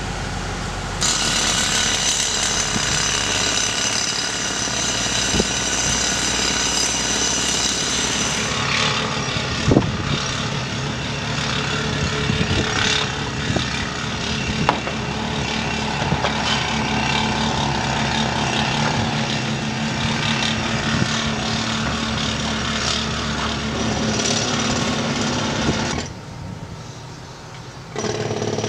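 Pneumatic jackhammers breaking up sandstone on a rock face, several running at once with a dense, steady clatter. It briefly drops quieter for about two seconds near the end, then picks up again.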